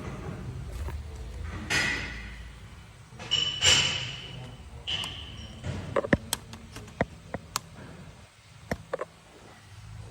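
Metal clinking and knocking, as of tools and parts handled on metal. One strike about three and a half seconds in rings on with a high metallic ping, then comes an irregular run of sharp clicks and knocks.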